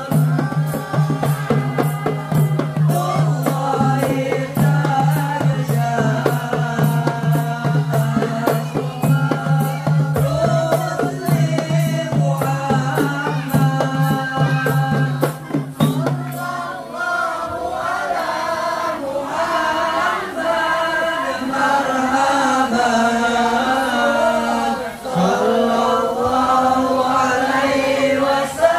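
Marawis ensemble of boys chanting a devotional sholawat song in unison, accompanied by hand drums. For the first sixteen seconds or so a steady low drone and a quick regular jingling beat run under the voices; then they stop and the chant turns more melodic.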